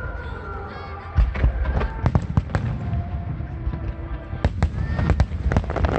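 Aerial fireworks bursting in a rapid barrage: a dense run of sharp booms and cracks starting about a second in, with deep rumbling between the reports.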